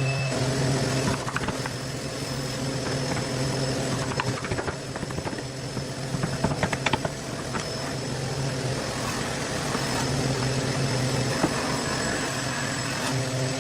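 A machine motor running with a steady hum, which gives way to a noisier working stretch with several sharp knocks in the middle before the steady hum returns near the end.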